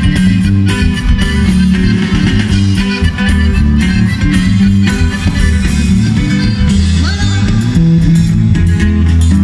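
Live band music played loud through a stage sound system: electric guitars over a heavy, steady bass line, with an accordion in the line-up.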